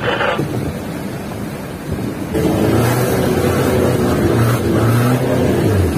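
Double-cab pickup's engine running under load, heard from inside the cab; about two seconds in it grows louder into a steady hum that dips briefly a few times as the throttle works.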